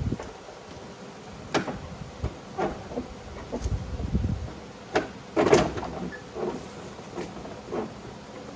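Irregular knocks, clicks and scraping as the plastic fender well liner is handled and pushed into place on the car, with one louder clatter about five and a half seconds in.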